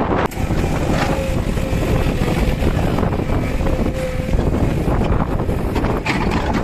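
Backhoe loader's diesel engine running steadily, with wind buffeting the microphone.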